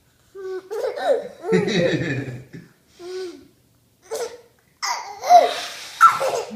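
A two-year-old toddler laughing hard in short bursts, in turns with an adult man's snorts.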